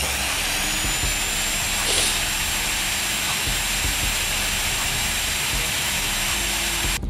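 Magnetic drill's electric motor running steadily under load as a 5 mm Dormer A002 HSS bit cuts into thick steel plate, with a thin steady high whine over the motor noise from about half a second in. It cuts off abruptly just before the end.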